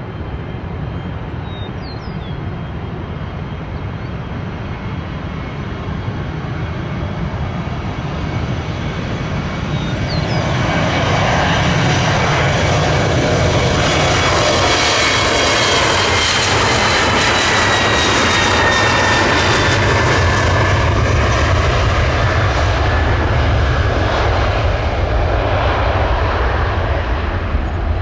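Departing Embraer E170 jet airliner with its two General Electric CF34-8E turbofans: the jet noise builds over the first ten seconds and then stays loud. Its whine falls slowly in pitch as the plane goes past, and a low rumble strengthens toward the end.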